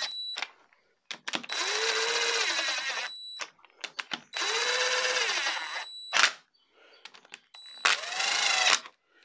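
DeWalt XR cordless power driver spinning 13 mm bolts down into a Vauxhall F17 gearbox casing. It makes three runs, two of about two seconds and a shorter one near the end, each speeding up and then slowing, with a steady high whine. Light metal clicks of the socket and bolts come between the runs.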